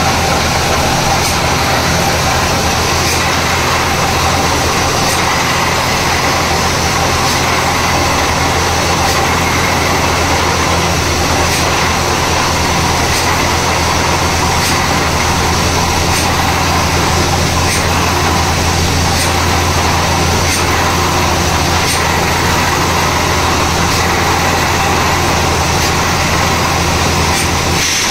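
Borewell drilling rig running steadily and loud during 6.5-inch bore drilling: a heavy engine drone under a constant noisy rush of drilling.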